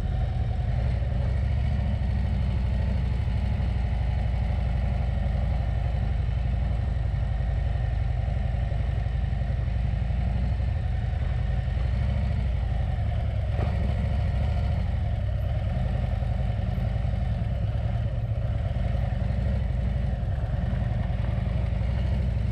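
Harley-Davidson motorcycle running at a steady cruise, its engine note even throughout.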